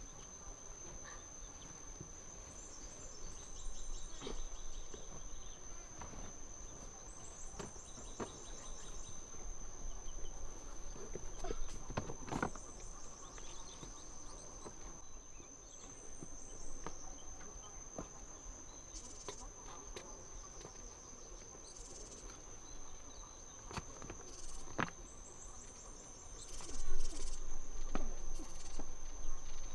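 Forest ambience: a steady, high insect drone like a cricket, with short bird chirps now and then and scattered clicks and knocks of things being handled. There is a louder patch of knocking and rustling near the end.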